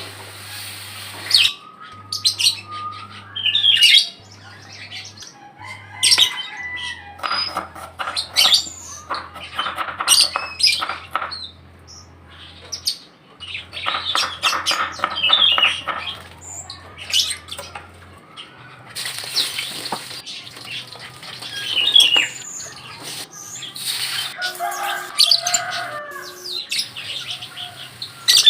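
Birds chirping and squawking, mixed with many short clicks and knocks and a low hum that stops and starts.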